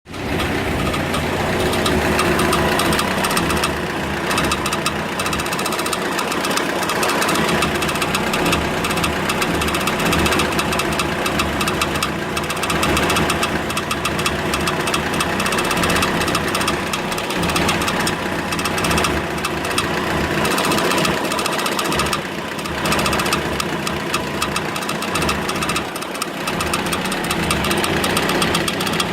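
An engine running steadily with a fast, dense clatter.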